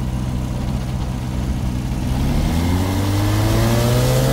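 Engine of a WW1 replica biplane running steadily at idle, then throttled up about two seconds in, its note rising in pitch and getting louder as it runs up.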